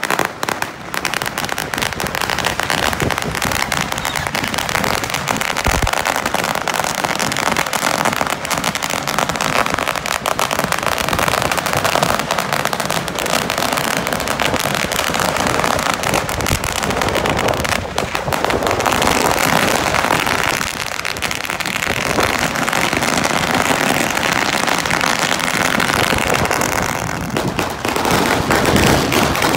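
A long string of firecrackers going off, a rapid, continuous crackle of bangs that never pauses.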